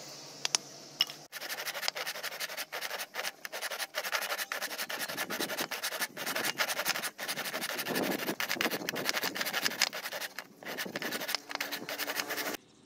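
Hand saw cutting through a round wooden handle blank in quick, even back-and-forth strokes, starting about a second in and stopping abruptly near the end. Two sharp knocks come just before the sawing starts.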